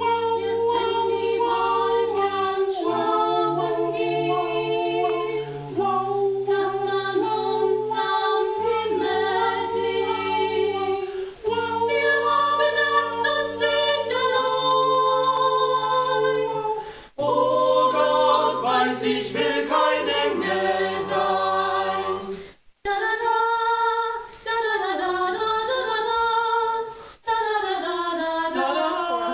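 A cappella choir singing in harmony without instruments: several voices, low and high, hold chords that change every second or two, with a few short breaks between phrases.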